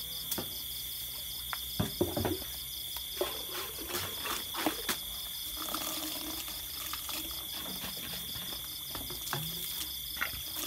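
Night insect chorus, crickets among them: a steady high-pitched trill with a faster pulsing trill above it. Scattered short knocks and rustles sound over it, loudest about two seconds in and again around four to five seconds.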